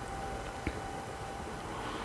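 Low, steady background noise with a faint steady hum, and one small click about two-thirds of a second in.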